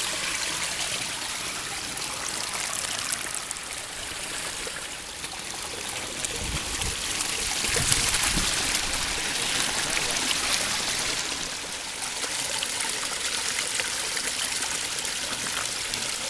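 Water splashing and trickling steadily down the rock cascades of a garden pond's waterfall and stream, with a brief low rumble about halfway through.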